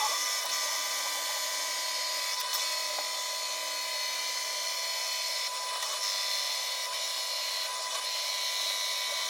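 A homemade metal cut-off saw running and cutting, a steady whine with rasping noise.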